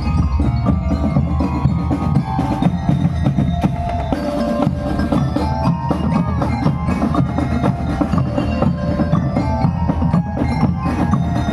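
Drum and lyre band playing a march: steady bass-drum and drum beats with bell lyres carrying the tune.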